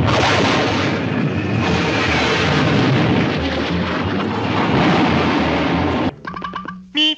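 Cartoon sound effect of a big boulder rumbling and crashing down a canyon cliff: a long, loud rumble that cuts off suddenly about six seconds in. A few short pitched notes follow near the end.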